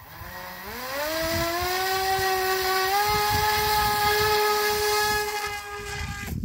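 Electric motor and propeller of a small FPV glider spinning up. It makes a whine that rises in pitch over the first couple of seconds, then holds steady at full throttle, and it cuts off suddenly near the end.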